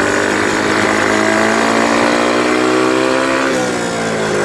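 The X7 pocket superbike's 110cc four-stroke engine running steadily, its pitch slowly climbing as it gathers speed, then dropping about three and a half seconds in as the throttle eases off.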